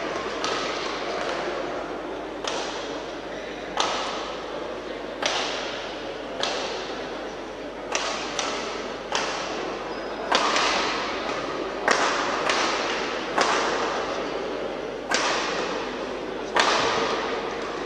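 Badminton rackets striking a shuttlecock back and forth in a long rally: sharp cracks about once a second, each ringing on briefly in a large sports hall.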